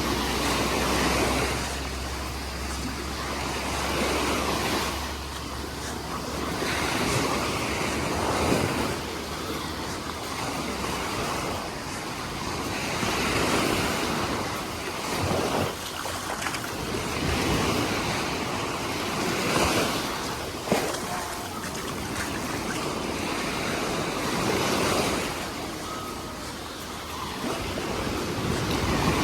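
Small sea waves breaking and washing up a beach, the surf swelling and falling every few seconds. Wind rumbles on the microphone during the first several seconds.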